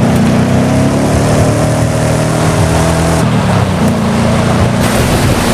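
Electronic engine sound effect from a toy steering wheel's speaker, running steadily with small step changes in pitch; it drops about three seconds in and steps back up a second later.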